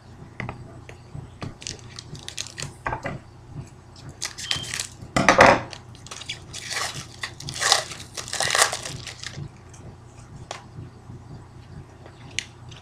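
Foil wrapper of a trading-card pack being torn open and crinkled by hand, in irregular crackling rustles that are loudest about five seconds in and again around eight seconds; near the end the cards are handled more quietly.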